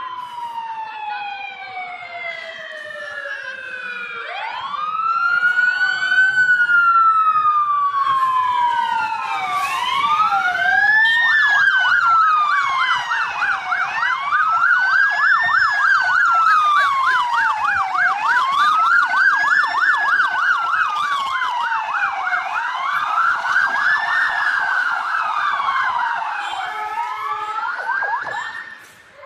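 Sirens of fire engines and ambulances arriving on emergency: one siren falls away in pitch at the start, then a slow wail rises and sweeps up and down about every two seconds, joined about a third of the way in by a fast yelp from a second siren. The sirens cut off just before the end.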